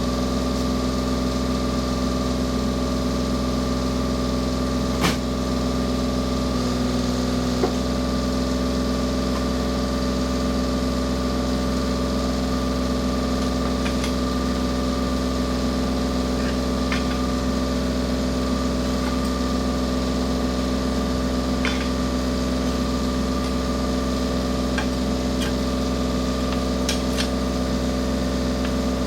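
Komatsu PC27 mini excavator's engine and hydraulics running at a steady held speed, with an even whine. Two sharp metallic clicks come about five and eight seconds in, and a few fainter ticks follow.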